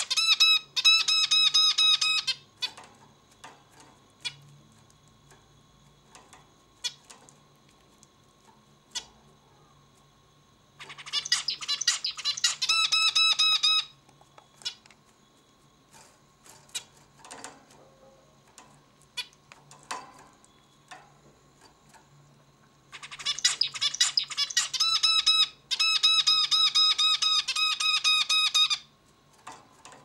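Male zebra finch singing three song bouts of rapidly repeated phrases: one at the start, one about eleven seconds in, and a longer one from about twenty-three seconds in. Short single call notes fall in the gaps between bouts.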